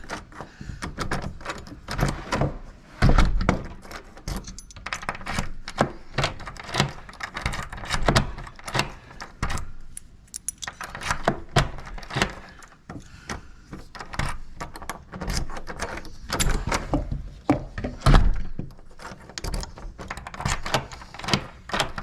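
Keys and small metal lock parts clicking and rattling as they are handled, with a few dull thunks, the loudest about three seconds in and again near the end.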